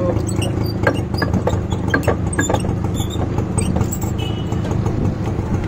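Steady low hum of an idling engine amid street traffic, with a few sharp clicks about one to three seconds in.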